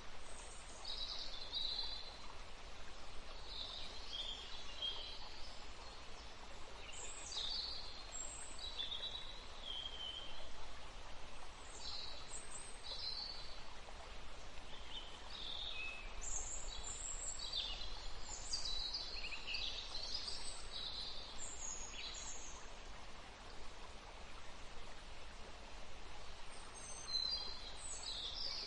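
Birds chirping in short, scattered calls over a steady background hiss.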